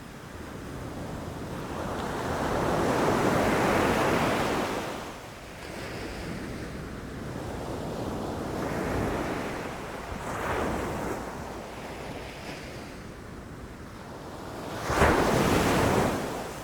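Ocean waves rushing in and crashing on the shore, rising and falling in slow surges. One long surge comes a few seconds in, and a sharper, louder crash comes near the end.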